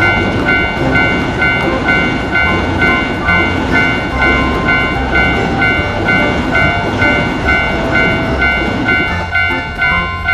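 Japanese level-crossing alarm ringing its bell tones about twice a second while a train passes with a heavy rumble and the clatter of its wheels.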